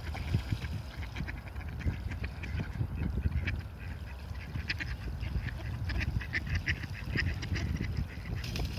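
Mallard ducks quacking over and over in quick series, with a low wind rumble on the microphone.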